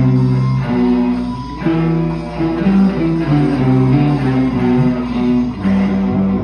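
Guitar playing a melody of held single notes, mostly low, changing about once a second, over a steady low hum.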